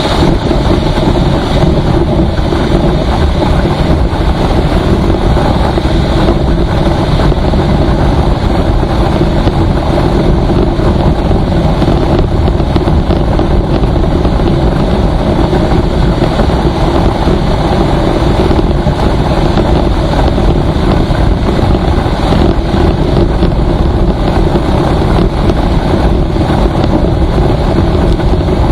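Steady, loud noise of a vehicle driving at highway speed, engine and road noise mixed with wind buffeting the microphone.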